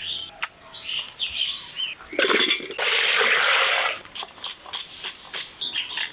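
Raw chicken being cut up by hand: scattered knocks and clicks of the blade and pieces, with a loud rushing, rustling noise lasting about a second and a half from about two seconds in. Birds chirp in the background.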